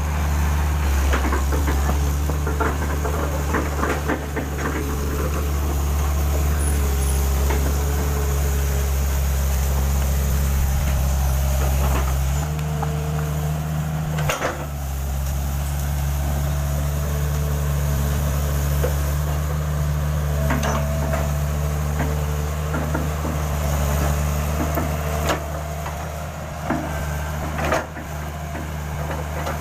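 An engine idling steadily, its low hum shifting slightly in pitch about twelve seconds in, with scattered short knocks and clicks over it.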